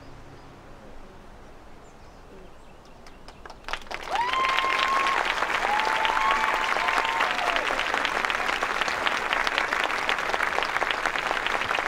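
Audience applause starting about four seconds in after a few seconds of hush, dense and steady clapping from a large seated crowd, with a few cheers near its start.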